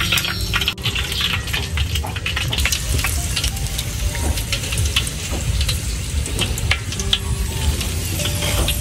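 Fish-and-shrimp cake rolls frying in hot oil, with a steady, dense sizzle and crackle.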